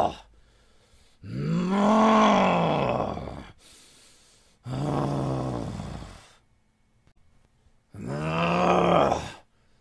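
A man's angry groans, three drawn-out voiced cries with short pauses between, each rising and then falling in pitch; the first is the longest.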